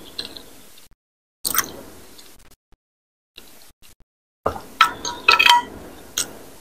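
A metal spoon and fork clinking against a glass bowl while scooping broth and rice cake: one clink about a second and a half in, then a quick run of clinks from about four and a half to six seconds in.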